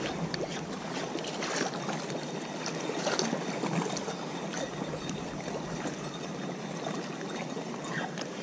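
Choppy water lapping and splashing steadily, with many small splashes throughout.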